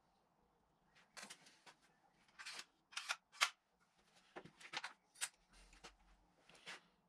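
Irregular series of short clicks and rattles from a cordless nail gun being handled and readied with nails.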